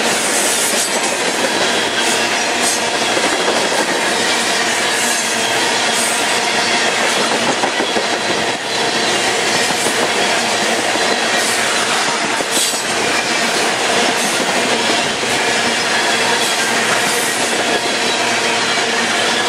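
Freight train of tank cars rolling past at close range: the steel wheels rumble and clack steadily over the rail, with a faint steady squeal of wheels on the rail running through it.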